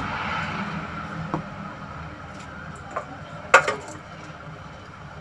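Stainless steel bowls being handled: a couple of light taps, then one sharp metallic clink with a short ring about three and a half seconds in, over a steady low background hum.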